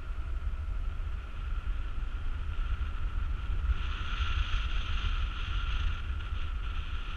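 Wind rushing over a camera microphone as a paraglider flies: a heavy, steady low rumble with a thin, steady high whistle on top that grows brighter about four seconds in.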